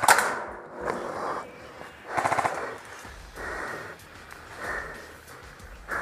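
Airsoft guns firing rapid bursts: one burst right at the start and another about two seconds in.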